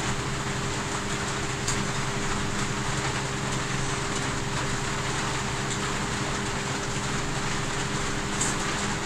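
A steady hum and hiss, with two faint clicks from people eating rice and curry by hand off glass plates.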